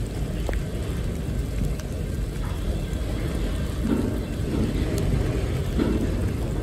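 Freight train of autorack cars rolling past close by: a steady low rumble of steel wheels on rail, with a few short louder clunks along the way.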